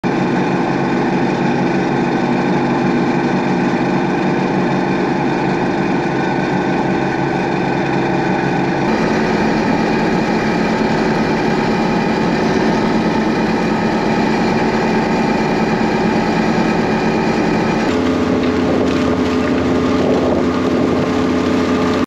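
John Deere 6620 combine running under load while harvesting corn, its engine and threshing machinery droning steadily inside the cab. The drone changes pitch abruptly about nine seconds in, and again near the end to a different engine sound.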